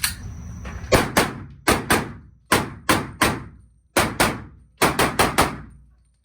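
Rapid handgun shots from an IPSC competition pistol, about thirteen in all, fired mostly in quick pairs and a fast burst of four near the end, each shot followed by a short ringing echo.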